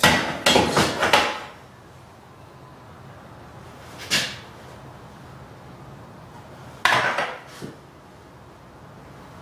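Spirit level being set against and shifted along metal wall-hanging brackets: a cluster of clatters at the start, a single knock about four seconds in, and another clatter at about seven seconds.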